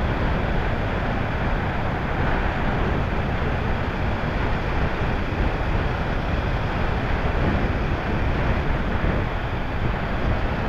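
Steady wind rush over the microphone mixed with the road and engine noise of a Kawasaki Ninja 300 motorcycle being ridden.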